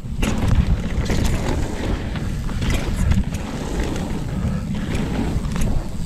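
Wind rushing over a chest-mounted GoPro's microphone while a Commencal Meta AM 29 mountain bike descends a bike-park trail, with a steady rumble of tyres on dirt and frequent clattering knocks and rattles from the bike over rough ground.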